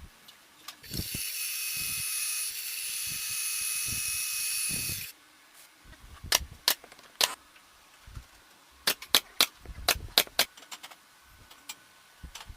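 A small motor runs for about four seconds with a steady high-pitched hiss and several high tones, then cuts off suddenly. A string of sharp clicks and knocks follows, some in quick clusters.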